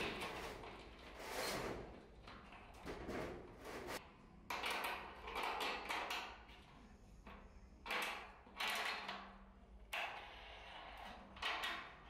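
Caster wheels being fitted to a large sheet-steel washing machine drum: irregular bursts of metal scraping and rattling, each about half a second to a second long, over a faint steady hum.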